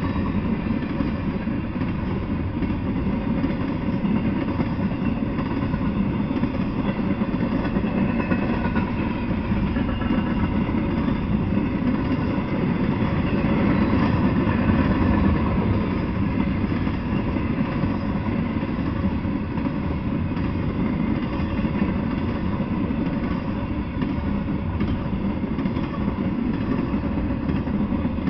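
Freight train of intermodal well cars rolling past, a steady noise of steel wheels running on the rails, heaviest in the low range.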